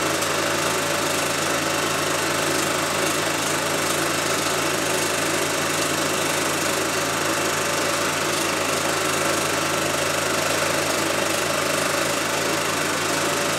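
Home-movie film projector running: a steady mechanical whir over a low hum, unchanging throughout.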